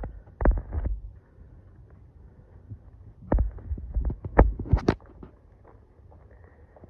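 Irregular low thumps of footsteps and a handheld phone being jostled while walking, in a short cluster about half a second in and a longer one from about three to five seconds in, over faint outdoor background.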